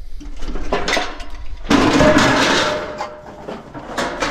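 Thin scrap sheet metal and small metal junk clattering and scraping as it is shifted by hand. About two seconds in there is a loud scrape and rattle with a brief metallic ring, and there is another knock near the end.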